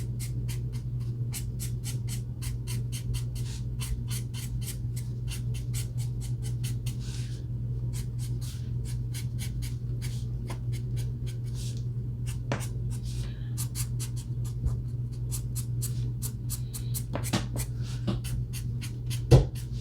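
Alcohol marker tip scratching on paper in quick short strokes, several a second, over a steady low hum. A single knock comes near the end.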